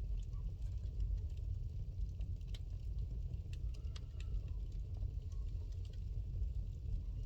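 Wood fire burning in a fireplace: a steady low rumble with scattered crackles and pops, the sharpest of them bunched in the middle.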